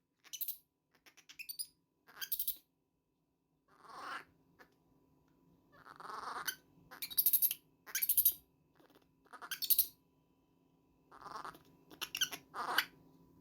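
Baby monkey giving short, high-pitched squealing cries, about a dozen in quick succession with brief gaps between them.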